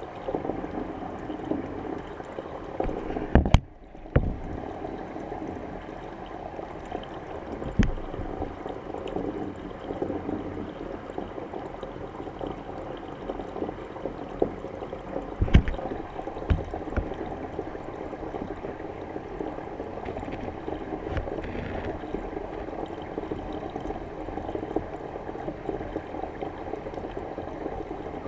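Steady churning of water in a fish tank, heard underwater and muffled. A few sharp knocks stand out, the loudest about three seconds in and about fifteen seconds in, and the sound drops out briefly just before four seconds in.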